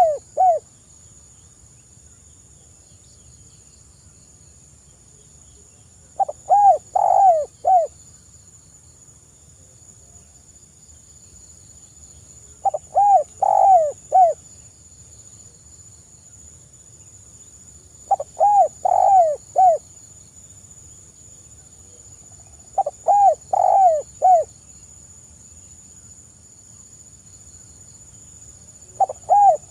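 Spotted dove cooing: a short phrase of four or five notes, repeated about every five to six seconds.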